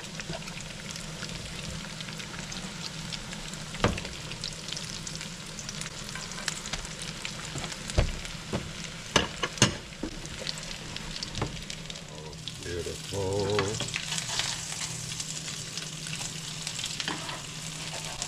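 Potato cakes sizzling in hot vegetable oil in a frying pan, a steady crackling hiss. A metal spatula scrapes and clicks against the pan a few times as the cakes are lifted and flipped.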